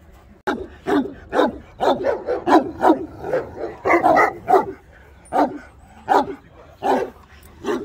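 Large Kangal dogs barking. Deep barks come fast, two or three a second, from about half a second in, then slow to single barks about a second apart.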